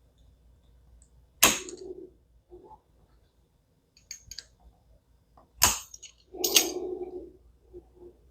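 Two sharp knocks about four seconds apart, each followed by softer handling sounds: a wooden ravioli mold being knocked against the counter to release the ravioli.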